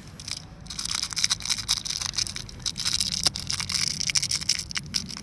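Dense crackling and rustling from about a second in, like a plastic bag of powder being handled and tipped out.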